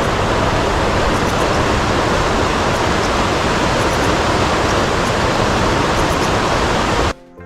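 Loud, steady rushing noise with no rhythm or tone, cut in abruptly and cut off sharply near the end.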